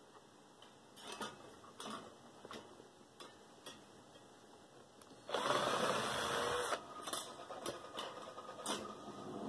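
Light clicks and knocks of metal desk-fan parts being handled during disassembly, then a loud, rough burst about five seconds in that lasts a second and a half.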